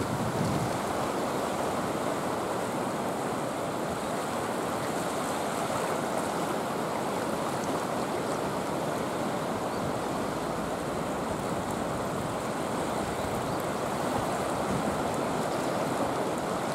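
Rough sea surf: waves breaking and washing against rocks and a concrete breakwater, a steady rush of water.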